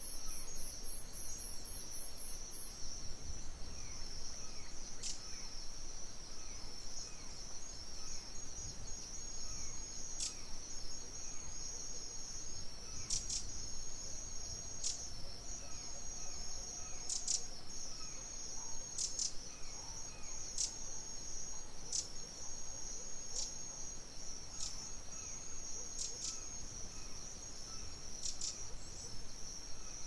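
Crickets trilling in a steady, high, unbroken chorus, with short bird chirps every few seconds.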